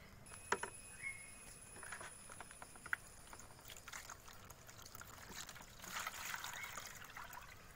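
Water poured from a plastic bucket into a shallow plastic tub, faint, with a few light knocks of plastic.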